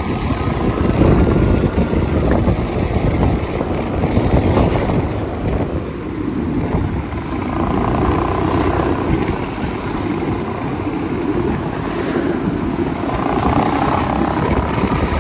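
Motorcycle on the move along a highway: engine running under a steady low rumble of road and wind noise on the microphone.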